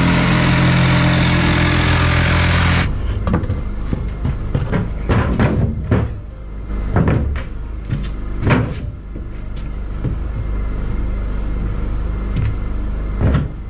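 Corded jigsaw cutting plywood, running steadily for about three seconds and then stopping. It is followed by scattered knocks and thumps on the plywood floor.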